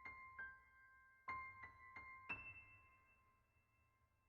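Soft solo piano music: single notes struck in small groups, each ringing and fading, with the last note left to die away slowly.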